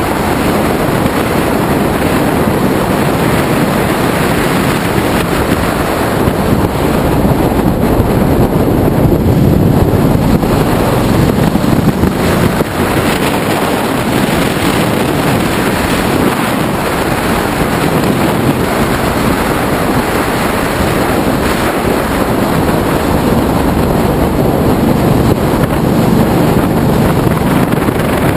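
Steady wind rush buffeting the microphone of a camera on a moving Ducati Multistrada motorcycle, with the bike's V-twin engine running underneath at road speed.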